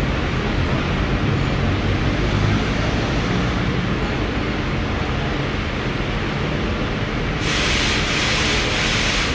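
Laser welding machine running with a steady hum and hiss. A louder, higher hiss sets in about seven and a half seconds in.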